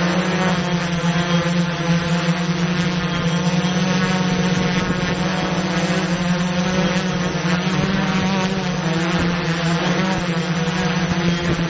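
Multirotor drone's propellers humming steadily at a constant pitch, with a faint wavering in the upper tones.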